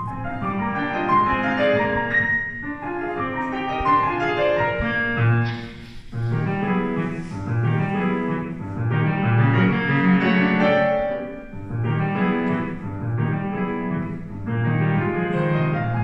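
Grand piano played solo: a continuous piece with many notes sounding together in the bass and treble, easing off briefly about six seconds in before going on.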